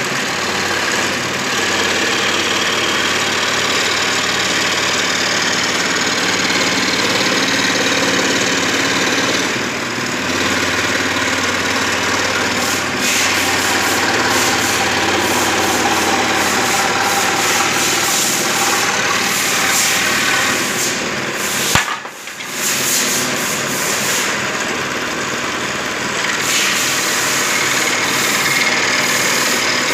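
Woodworking machine running steadily with wood being cut. The noise briefly drops out about two-thirds of the way through, then carries on.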